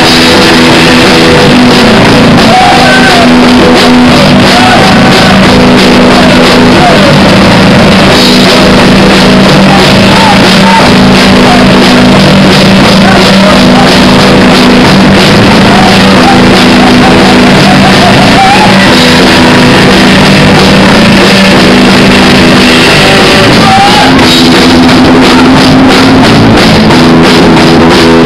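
Live rock band playing loud: distorted electric guitars, bass and a drum kit, with shouted vocals. The recording sits at near full level throughout, a dense, steady wall of sound with held low notes.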